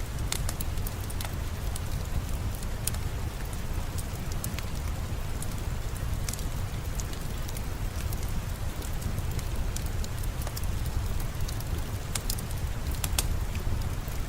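Steady rain with a wood fire crackling: scattered sharp, irregular pops over a continuous hiss and a deep low rumble.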